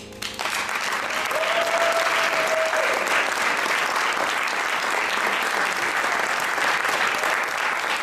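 Audience applauding after the last piano chord dies away, swelling over the first couple of seconds and then holding steady.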